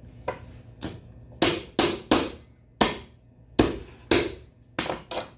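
A meat tenderizer mallet striking a cooked lobster claw on a cutting board to crack the shell: about ten sharp blows at an uneven pace. The heaviest come in the middle, and lighter taps come at the start and end.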